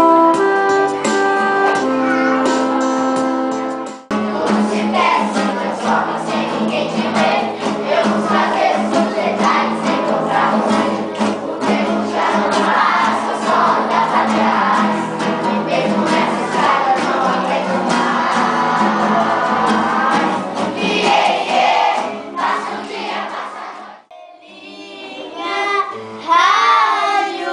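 A melody played on an electronic keyboard, with single held notes, cut off abruptly about four seconds in. Then a group of classical guitars accompanies children singing together. Near the end comes another cut, after a brief dip, to children singing with a guitar.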